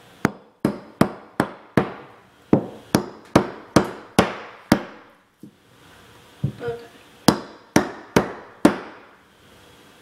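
Claw hammer tapping on a wooden block held against a drywall patch to set the patch flush with the wall: a run of about eleven sharp knocks, a pause of about a second and a half, then about six more.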